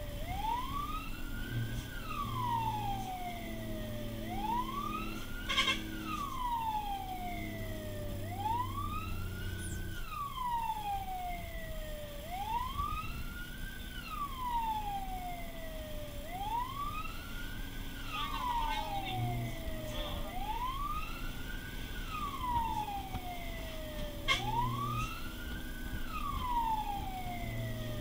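Fire truck's siren wailing, heard from inside the truck's cab, rising and falling about every four seconds over the engine running.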